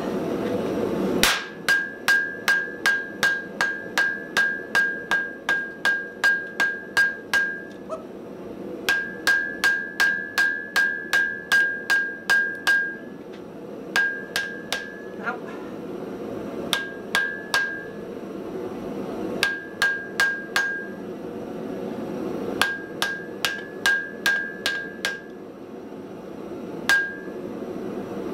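Hammer blows on a red-hot Damascus steel billet on the anvil, forge-welding the layers together, in quick runs of about three blows a second with short pauses between the runs. Each blow carries a clear anvil ring, over a steady low rush.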